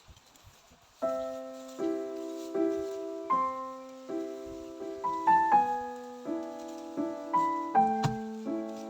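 Background piano music starting about a second in: slow, gentle chords, a new one struck roughly every second. A single sharp click sounds near the end.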